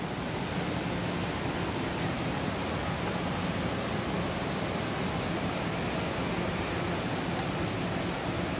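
Steady rushing background noise of a large glass-roofed indoor atrium, even from low to high pitches with a faint low hum underneath and no distinct events.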